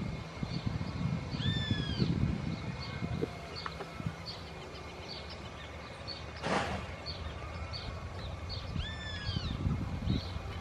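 Wind buffeting the microphone, with birds calling over it: a short chirp repeated about twice a second and two longer descending calls, one near the start and one near the end. Under them is the faint steady whine of an Airbus A320's jet engines at taxi idle, and a brief hiss about six seconds in.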